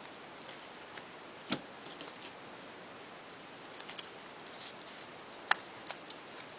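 Baseball cards and card packs being handled: a few faint scattered clicks and taps over a steady hiss, the sharpest about a second and a half in and again near five and a half seconds.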